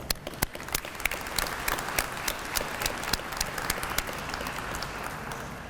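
An audience applauding, a dense patter of separate hand claps that dies away near the end.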